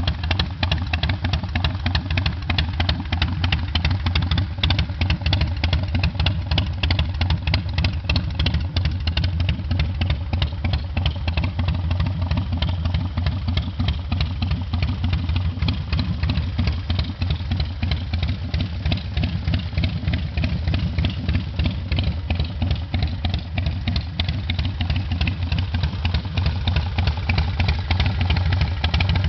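Harley-Davidson Dyna Super Glide V-twin, bored out to 95 cubic inches with a Screamin' Eagle big-bore kit and fitted with performance cams, idling steadily through Python exhaust pipes with a rapid, even pulsing beat.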